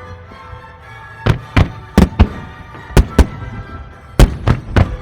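Fireworks bursting in a quick series of sharp bangs, about nine of them starting a second in, over background music.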